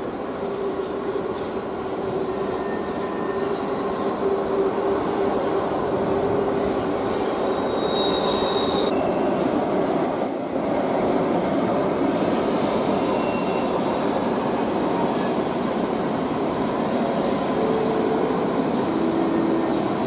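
Freight train wagons rolling past on the rails: a steady rumble of wheels on track, with high wheel squeals that come and go, mostly in the second half.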